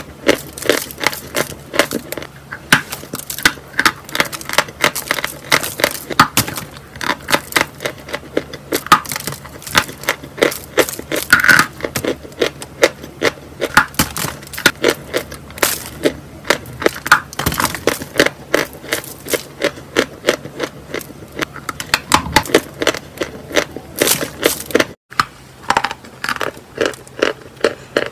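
Close-miked crunching of a chunk of chalk being bitten and chewed: a steady run of sharp crunches several a second, with a brief gap near the end.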